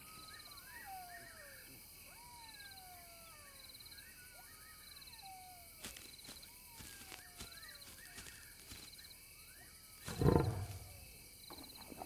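Night bush ambience of crickets trilling and repeated falling whistled calls. Then, about ten seconds in, a lion at a kill gives a short, loud growl.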